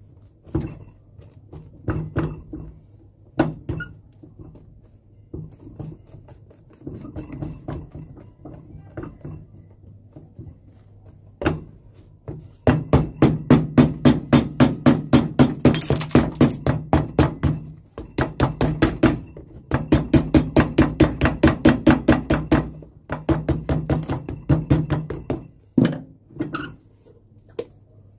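Cobbler's hammer tapping a freshly glued leather sole down onto a shoe held on a shoe jack, setting the heat-reactivated glue bond. It starts with a few single knocks, then from about twelve seconds in gives long runs of rapid blows, about five a second, with two short pauses.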